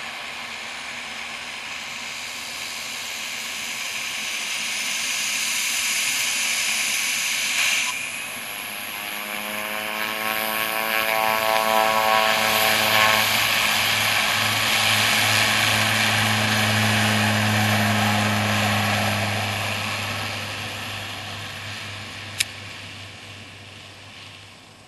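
Cessna 208B Grand Caravan's Pratt & Whitney PT6A turboprop taxiing past at low power: a steady turbine whine and hiss with a low propeller hum, swelling as the plane passes and fading away over the last few seconds. A single sharp click a little before the end.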